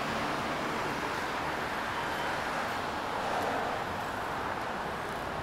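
Steady outdoor city ambience: an even wash of traffic noise, with no single sound standing out.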